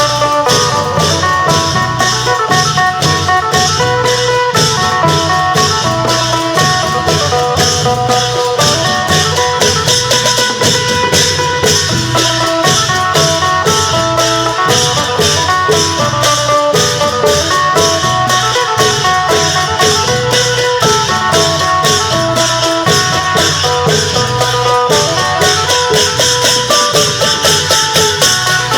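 Isan folk music from a klong yao long-drum band: a phin (plucked lute) plays a busy melody of short notes over a fast, steady beat of long drums and cymbals.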